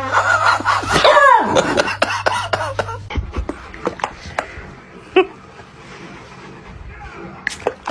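A pet's long, wavering cry that falls in pitch and fades out about two seconds in, followed by a scattering of light clicks and knocks.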